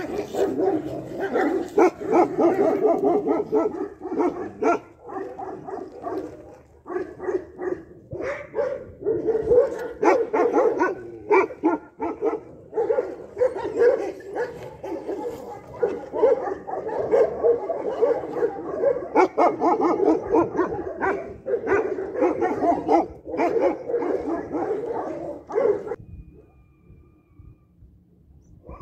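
A pack of dogs barking and yelping over one another in a dense, continuous commotion, the stir of males crowding round a female in heat during mating season. It stops abruptly shortly before the end.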